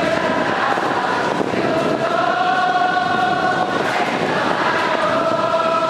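Crowd of baseball fans singing a cheer chant in unison in long held notes, with wind noise on the microphone.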